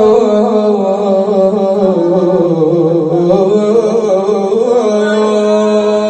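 Solo male voice chanting a Shia lament (nai), drawing out one long melismatic note. The pitch winds and dips lower in the middle, then settles on a steady held tone near the end.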